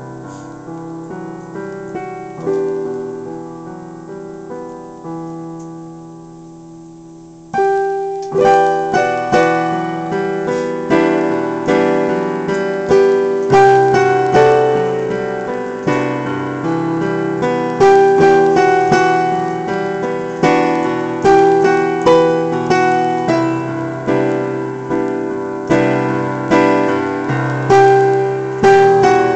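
Portable electronic keyboard with a piano voice, played with both hands in a slow piece. It starts soft, then after about seven seconds jumps abruptly to much louder, fuller playing, with a strong note struck about once a second.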